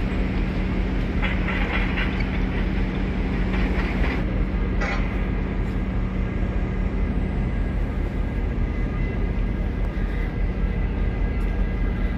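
Steady low machine rumble with a constant hum. A few light clinks and clatters come in the first five seconds.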